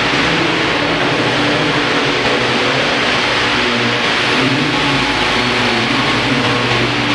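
Large 1:5 scale radio-controlled Bell 430 model helicopter flying at low height. Its drive whines and its 2.3 m main rotor whooshes steadily, the pitch wandering slightly as it manoeuvres.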